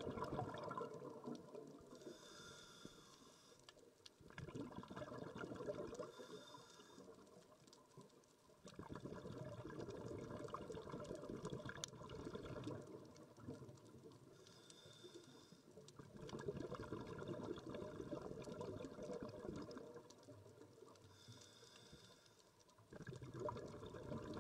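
Scuba diver breathing through a regulator underwater: long bursts of exhaled bubbles gurgling, broken about four times by a short hiss of inhalation through the demand valve.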